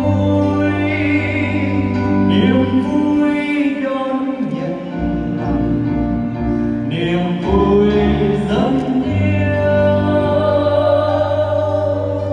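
Choir singing slow, held notes over instrumental accompaniment. A low sustained bass note drops out about three seconds in and comes back about nine seconds in.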